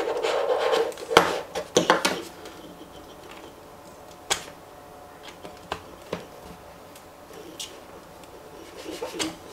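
Plastic handling noise and a scattered series of small clicks and taps as fingers work a barrel plug and the ports on the base of a handheld electric tyre inflator. Busier rustling in the first couple of seconds, then single sharp clicks a second or two apart.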